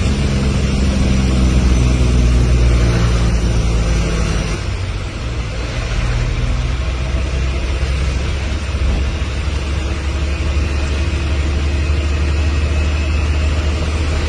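Road vehicle engine running under heavy rain, with a constant hiss over a steady low rumble. A pitched engine hum fades out about five seconds in.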